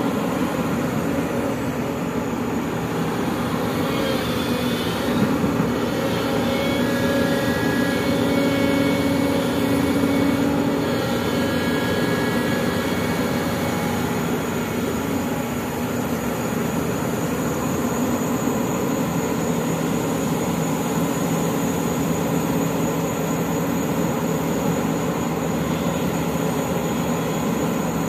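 SANY SY365H crawler excavator's diesel engine running steadily under load while it digs and swings soil into a dump truck, with a higher hydraulic whine that comes and goes in the first half.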